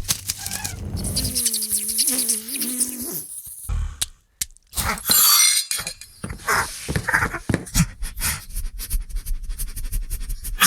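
A quick run of sound effects: many sharp clicks, clinks and knocks, with a short squeaky call that bends up and down about a second and a half in and a brief hiss about five seconds in.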